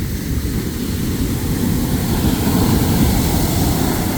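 Heavy surf: the low rushing rumble of a large wave breaking, swelling to a peak about three seconds in and then easing, with wind noise on the microphone.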